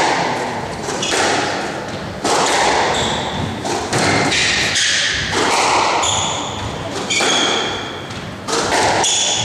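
Squash rally: sharp smacks of racket on ball and ball off the walls, roughly one a second, with short high squeaks of court shoes on the wooden floor.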